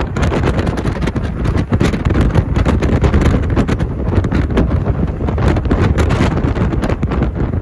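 Wind buffeting the microphone of a camera held at the window of a moving car, a loud irregular rumble over the car's road noise.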